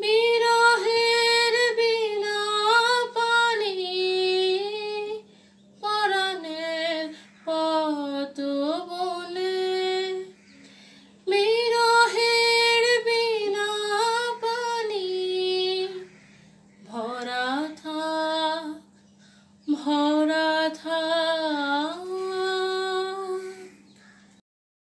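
A young woman singing a slow melody solo in long held phrases with short breaths between them, over a faint steady low hum; the singing stops just before the end.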